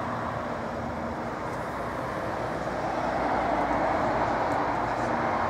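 Road traffic noise from a passing vehicle, a steady rush of tyre and engine sound that swells about three seconds in and then holds.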